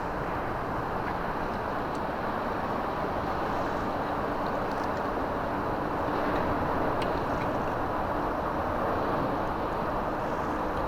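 Steady outdoor background noise: a dense, even hiss and rumble with a few faint clicks, getting slightly louder about halfway through.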